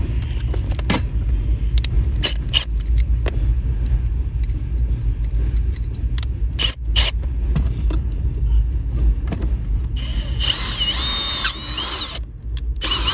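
Small clicks and knocks of a drill and bits being handled, then a power drill whirs for about two seconds near the end, with a short burst just after. A steady low rumble runs underneath.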